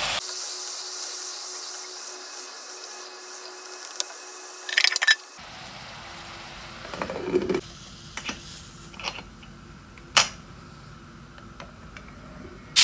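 A wooden spoon scrapes and stirs vegetables in an aluminium pressure cooker, then the Priyam cooker's lid is fitted with a few sharp metal clinks and knocks, the loudest about ten seconds in.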